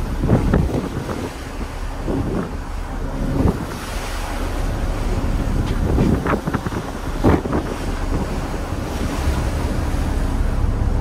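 Wind buffeting the microphone in strong gusts, over the hiss and wash of rough sea breaking along a ferry's hull.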